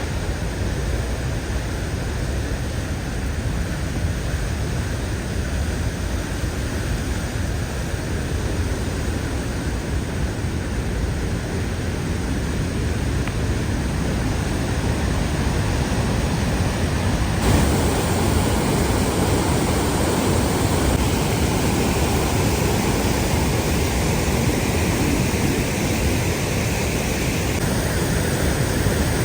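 Chippewa Falls in spring snowmelt flood, a steady rush of falling water. About two-thirds of the way in the sound abruptly becomes fuller and brighter, and it shifts again shortly before the end.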